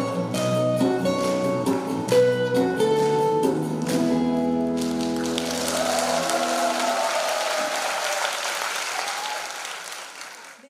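Acoustic guitars, bass and djembe play the closing bars of a song, ending on a held chord that rings out about five seconds in. Audience applause with a few shouts follows and fades out near the end.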